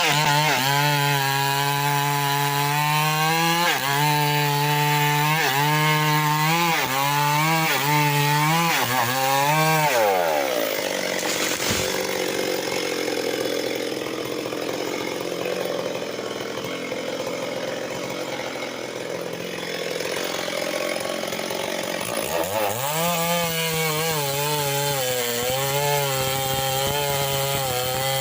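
Stihl MS 381 two-stroke chainsaw at full throttle cutting wood, its pitch sagging and recovering over and over as the chain bites under load. About ten seconds in it drops back to idle. Near the end it is revved up again and cuts under load.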